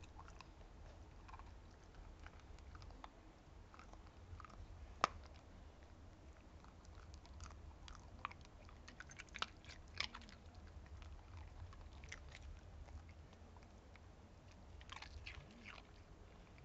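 A small dog crunching and chewing an ice cube: irregular crisp crunches and clicks, the sharpest about five seconds in, with flurries near ten and fifteen seconds in.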